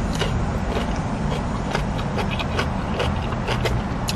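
Steady hum inside a car cabin, with scattered small clicks and crunches of someone eating and a plastic fork in a foam takeout box.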